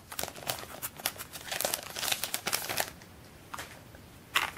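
Clear cellophane wrapper crinkling and tearing as it is peeled off a cardboard photo card pack, for about three seconds. Then it goes quieter, with a couple of light taps near the end.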